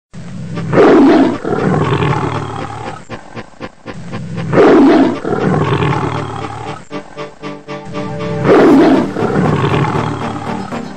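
Male lion roaring: three loud roars about four seconds apart, each falling in pitch and trailing off. Background music plays underneath.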